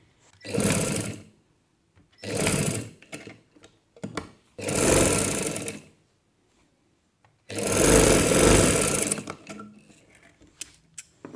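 Domestic sewing machine stitching through fabric in four short runs, each a fast, even chatter of stitches, the longest about two seconds near the end.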